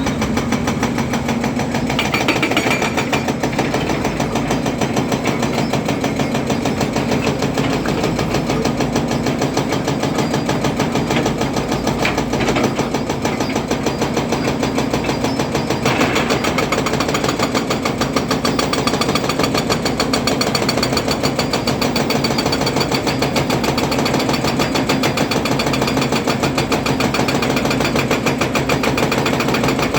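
Volvo EC300DL excavator's diesel engine running with a fast, even pulsing, growing brighter and harsher about halfway through.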